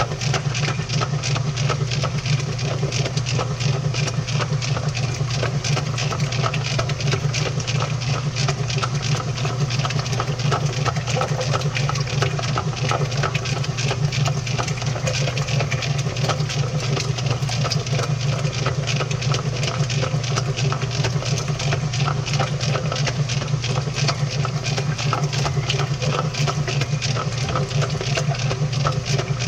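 Washing machine running, heard from inside the drum: a steady low motor hum under constant rattling and knocking as the camera tumbles in the turning drum.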